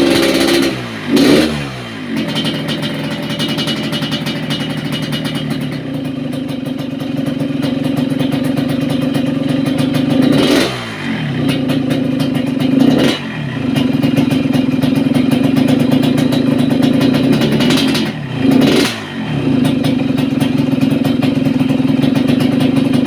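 Motorcycle engine idling with a deep, snoring exhaust note. The engine speed changes briefly about a second in, and again near the middle and toward the end.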